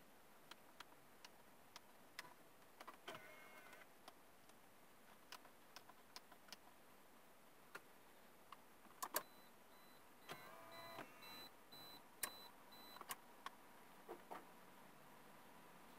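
Mostly near silence, with scattered light plastic clicks and taps from a car navigation head unit and its dash trim being handled; a few clicks are louder about nine seconds in. A faint, brief pitched chirp comes twice, near three seconds and again just after ten seconds.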